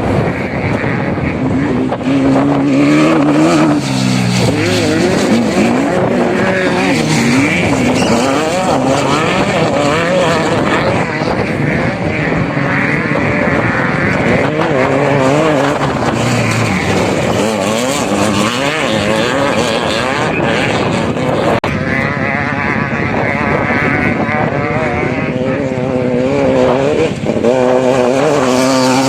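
Off-road vehicle engine revving, its pitch rising and falling over and over with throttle changes.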